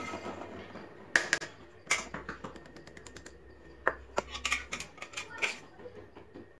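Steel spoon clinking and scraping against aluminium kulfi moulds and an iron kadai while thick mawa mixture is spooned into the moulds: scattered sharp clicks and taps, a quick run of them about four seconds in.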